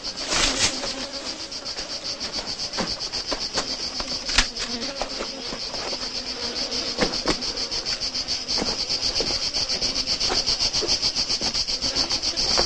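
Cicadas buzzing in a steady, high, fast-pulsing drone, with scattered sharp clicks, the loudest about four seconds in.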